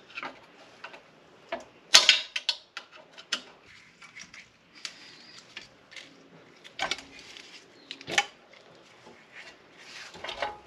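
Scattered clanks, clicks and knocks of the cast-aluminium upper intake plenum on a Nissan 350Z's V6 being rocked and worked loose by hand, with scraping and rustling between them. The loudest knock comes about two seconds in.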